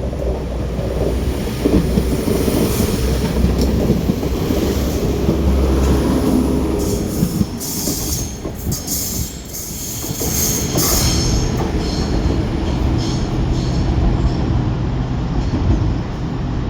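Passenger train running past on the station tracks: a steady rumble of wheels on rail, with high-pitched wheel squeal around the middle.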